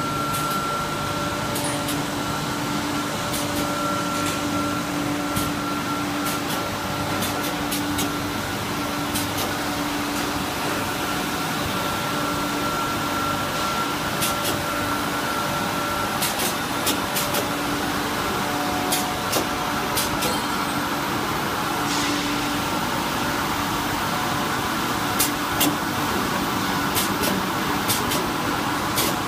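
LDPE pipe extrusion line running: steady machine noise from the cooling tanks and their pump motors, with a steady tone that breaks off now and then and scattered sharp clicks.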